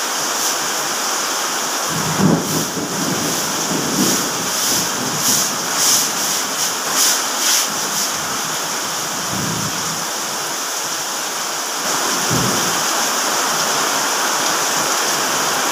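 Heavy rain pouring steadily onto pavement. From about two seconds in to about eight seconds, a string of irregular nearby splashes of water.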